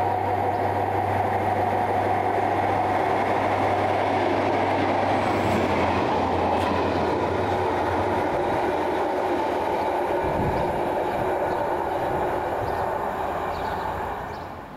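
A pair of Class 43 HST diesel power cars passing through, with a steady engine drone and wheels on the rails. The low engine hum eases about halfway through.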